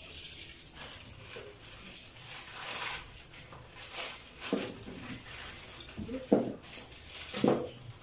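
Thin clear plastic bag crinkling and rustling in irregular strokes as hands open it and dig through the small motor, cable and screws inside.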